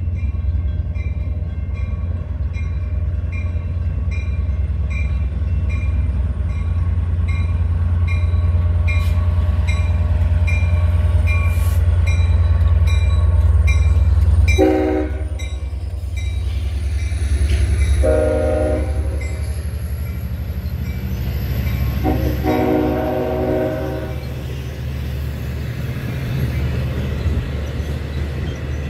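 Long Island Rail Road diesel locomotive passing close, its engine drone heavy, with bilevel coaches rolling behind, then three horn blasts, each longer than the last, as it pulls away. A bell dings about twice a second while the locomotive draws level.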